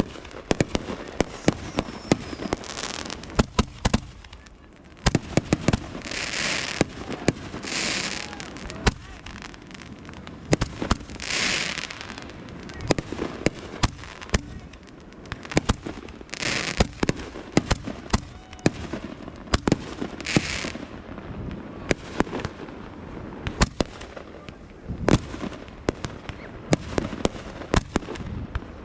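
Fireworks going off in a dense, irregular run of sharp bangs and pops. Several longer hissing, crackling bursts of about a second each are spread through it.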